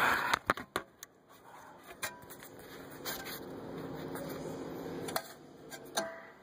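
Handling noise: scattered light clicks and knocks, over a faint steady hum.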